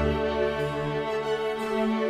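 Slow background music with long, held notes that change every second or so.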